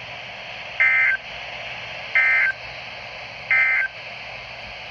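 Three short bursts of EAS SAME digital data tones from a NOAA Weather Radio broadcast, evenly spaced about a second and a half apart, over steady radio hiss. These are the end-of-message bursts that close the severe thunderstorm warning.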